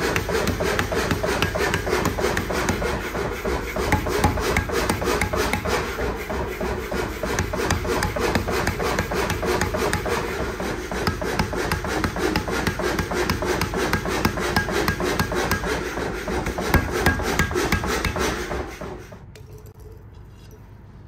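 Power hammer pounding a red-hot steel billet forge-welded from nails with rapid, continuous blows, hot-forging it flat into a blade blank. The hammering stops abruptly near the end.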